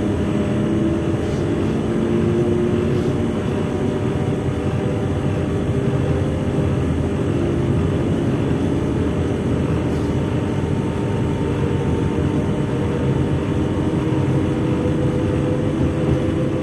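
Steady hum and whir of a stationary Z 20500 (Z 2N family) electric multiple unit, its on-board auxiliary equipment running while the train stands at rest. A few faint tones drift slightly in pitch over the first few seconds, then hold steady.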